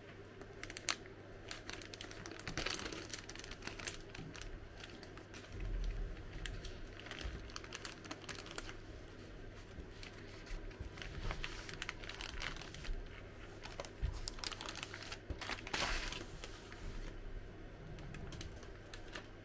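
Plastic food packaging being handled: a meal tray is pulled out of its plastic bag and its clear film lid peeled off, giving an irregular run of crinkles, crackles and clicks that thins out near the end.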